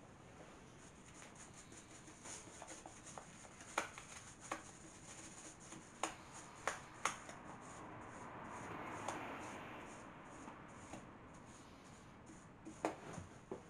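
Paintbrush strokes on a wooden cabinet: a soft, faint swishing that swells for a couple of seconds past the middle, broken by a few sharp clicks and taps.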